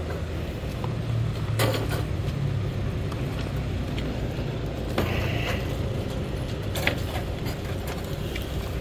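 Plastic-wrapped UPVC window frames being lifted and set onto steel flatbed carts: a few knocks and creaks, about two seconds in, five seconds in and near seven seconds, over a steady low rumble.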